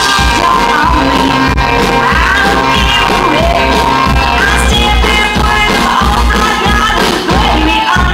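Live band playing loud amplified rock music with heavy bass and guitar, a woman singing the lead vocal over it.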